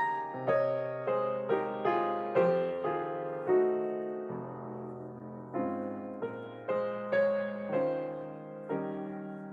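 Solo piano playing a slow, gentle piece, chords and single notes struck and left to ring.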